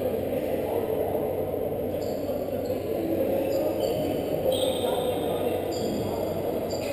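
Indistinct chatter of many voices, steady and unbroken, echoing in a large arena.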